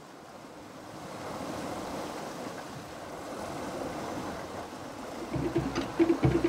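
Sea water rushing and splashing past a boat under way on choppy open ocean, with wind, swelling over the first second or so and then holding steady. Near the end, percussion music with regular drum strikes comes in.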